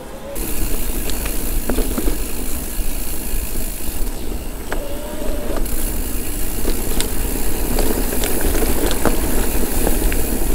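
Electric mountain bike ridden down a trail. Wind rumbles on the camera microphone over a steady hiss of tyres on dirt, with frequent sharp clicks and rattles from the bike on rough ground.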